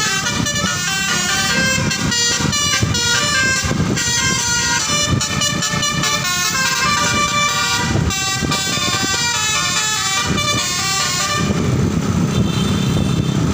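Bus telolet (basuri) musical air horn playing a quick tune of notes jumping between pitches. It stops about eleven and a half seconds in, leaving a low rumble.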